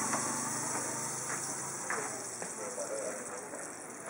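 Thin roti dough being flung and slapped a few times against a steel counter as it is stretched, over a steady hiss.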